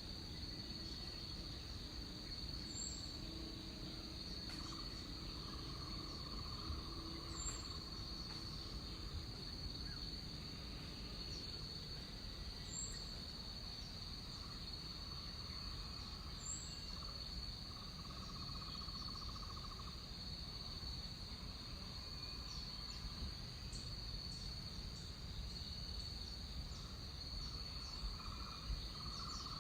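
Tropical rainforest insect chorus: a steady high-pitched trill runs throughout, while a lower buzzing trill comes and goes several times. Underneath is a low rumble.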